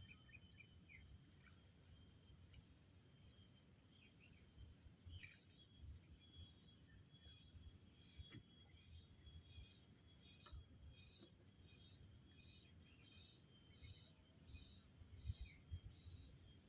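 Faint early-morning outdoor ambience: a steady high-pitched insect drone with scattered short bird chirps, and a couple of soft low knocks near the end.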